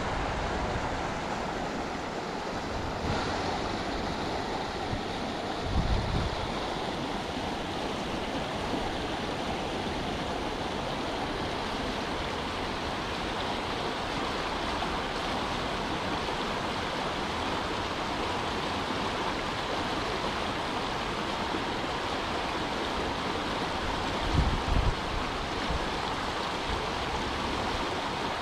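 Steady wind rushing through the trees, with low gusts buffeting the microphone about six seconds in and again near the end.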